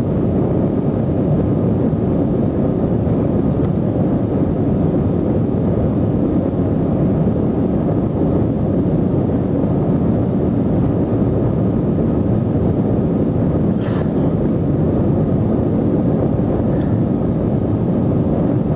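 Steady low rumble of an airliner cabin, with engine and air-conditioning noise, and a faint click near the middle.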